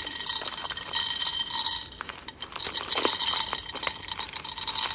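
Dried popcorn kernels poured from a plastic bag into an empty metal frying pan, a dense rattle of many small clicks as the kernels hit the pan and bounce.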